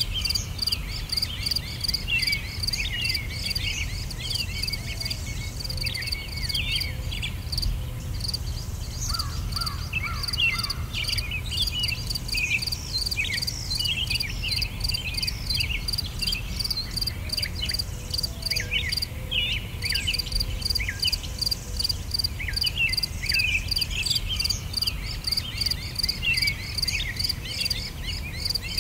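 Nature ambience of a rhythmic insect chorus, chirping steadily at about four pulses a second, with many small birds chirping over it and a low rumble underneath.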